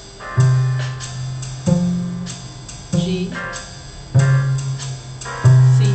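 Cello played pizzicato: five low plucked notes about one and a quarter seconds apart, each sharp at the start and ringing away.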